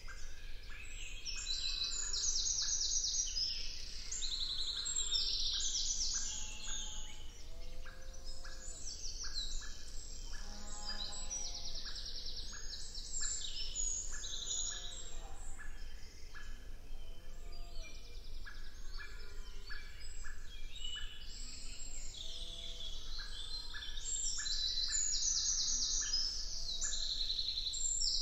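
Woodland birds singing together in a dense chorus: fast high trills and chirps from several songbirds overlap, with a few lower calls, over a steady low rumble.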